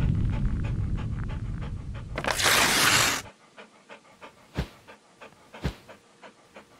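Intro sound effects: a low rumble dying away, a loud noisy swish about two seconds in, then a dog panting in quick, even, short breaths, about three a second.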